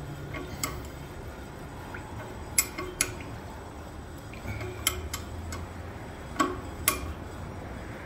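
Scattered sharp metal clicks as a hand wrench is worked on the bolts of a cast-iron pipe strainer, hand-snugging them, some coming in close pairs. A steady low hum runs underneath.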